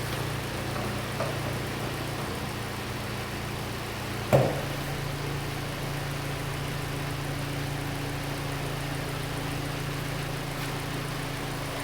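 Hyundai Elantra engine idling steadily, running smooth with its cylinder 3 fuel injector connector plugged back in after a misfire. One sharp knock about four seconds in.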